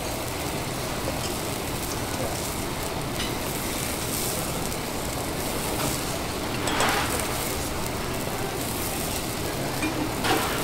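Food sizzling on a teppanyaki iron griddle: a steady sizzle with two short, louder hisses, one about seven seconds in and one near the end.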